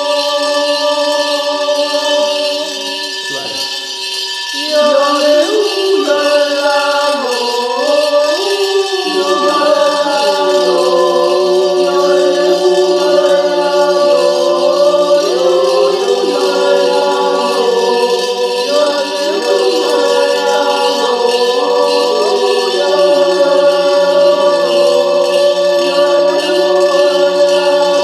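Appenzell coin swing (Talerschwingen): coins swirled in earthenware bowls make a steady, unbroken ringing drone. About five seconds in, several voices join with a wordless nature yodel (Zäuerli) in slow, sliding chords over it.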